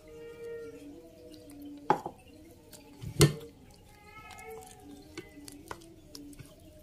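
Spoon stirring thick wet flour batter in a bowl, with two sharp knocks of the spoon against the bowl about two and three seconds in, the second the louder.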